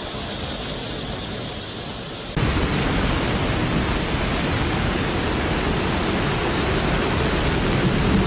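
Steady rushing storm noise of wind and heavy rain. About two and a half seconds in it jumps abruptly to a louder, deeper rush, as at a cut to another recording.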